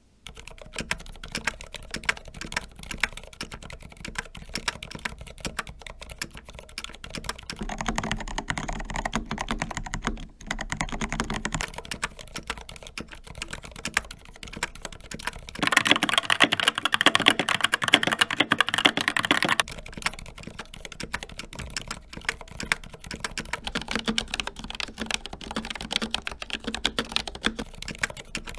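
Fast typing on a series of mechanical keyboards in turn, each clip about eight seconds. First comes a Glorious GMMK Pro with Gateron Black Ink switches, then a Melgeek Pixel with Kailh Pixel T switches, then a Skyloong GK61 with Gateron Optical Brown switches, and near the end an Asus Claymore II with ROG RX Red switches. The GK61 stretch starts louder and brighter.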